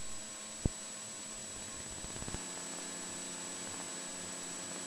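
Steady hiss of cockpit intercom audio with a faint engine hum behind it in a Cessna 172, broken by a short sharp click about two-thirds of a second in.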